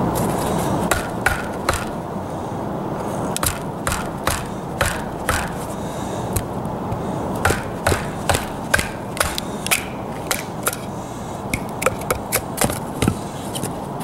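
Condor parang blade striking green wood: a run of irregular sharp knocks of steel on a wooden stake and stick, over a steady background noise.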